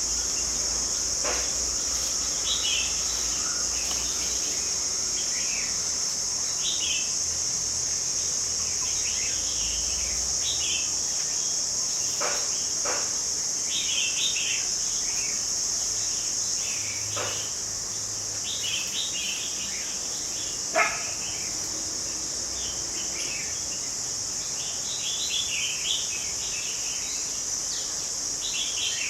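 Outdoor ambience of a steady, high-pitched insect drone with many short bird chirps scattered through it. A few brief sweeping calls stand out, the loudest about 21 seconds in.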